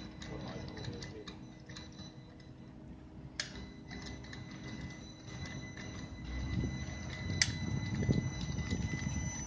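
Electric drive motors and linear actuators of a self-levelling wheeled work platform running, with a faint steady high whine and irregular small ticking clicks. Two sharper clicks stand out, about a third of the way in and again near the three-quarter mark, and from about six seconds in a louder low rumble sets in as the wheels roll up onto the ramp and the legs adjust.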